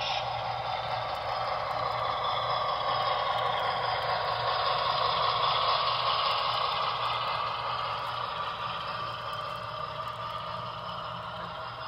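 HO scale model train running on the layout's track, its wheel and motor noise swelling to a peak about halfway through and then slowly fading as it passes, over a steady low hum.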